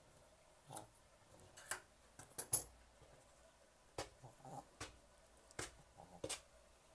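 Steel grooming shears snipping through a Maltese's long coat: about a dozen scattered, sharp clicks and snips, the loudest about two and a half seconds in.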